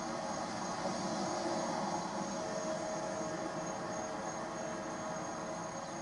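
Distant diesel locomotive running as it approaches, a steady even rumble with no horn blowing.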